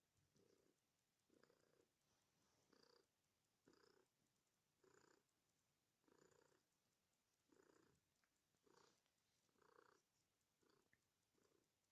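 Domestic cat purring faintly, in soft even swells about once a second.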